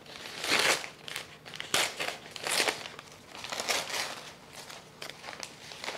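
Paper wrapping crinkling and rustling as it is pulled by hand off a shipped bare-root plant, in a run of crinkles about once a second that are louder in the first four seconds.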